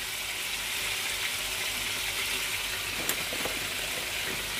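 Chicken pieces sizzling steadily in hot oil in a frying pan, the sizzle of water still cooking out of the meat. A few light knocks about three seconds in.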